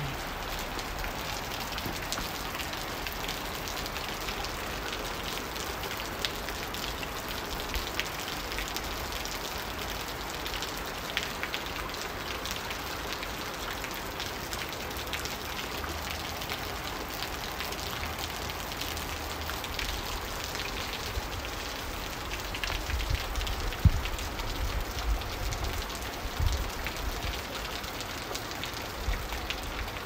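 Heavy rain falling and splashing onto standing water: a steady, even hiss of drops. A few low thumps come in the last several seconds.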